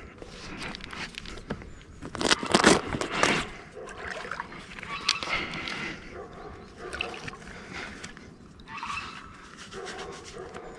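A hooked wels catfish splashing and swirling at the water's surface as it fights, with a few louder splashes from about two to three and a half seconds in.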